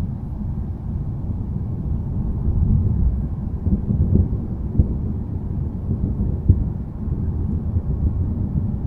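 Low rolling thunder rumbling, swelling about three to four seconds in, with two short sharp cracks near the middle.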